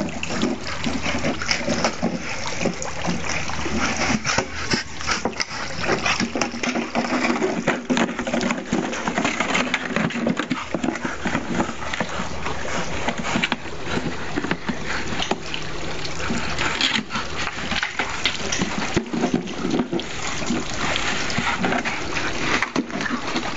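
Water pouring from a watering can and splashing on the grass, with a dog biting and splashing at the stream, plus many short irregular splashes and clicks.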